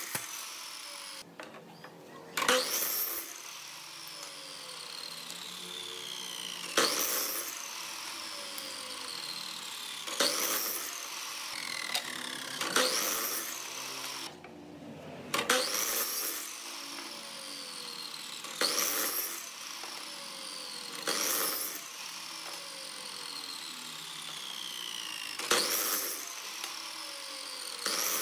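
Compound miter saw making about ten short crosscuts through small wood pieces, a few seconds apart. Each cut is followed by the motor's whine falling as the blade spins down after the trigger is released.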